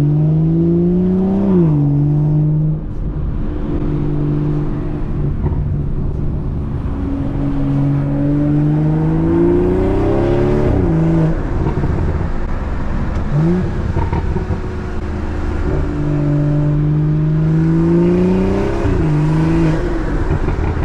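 BMW 340i's B58 turbocharged inline-six being revved through a Valvetronic axle-back exhaust with both resonators deleted, heard from outside the car. Several long rev-ups climb steadily in pitch and drop sharply back to idle, with a few short blips in between.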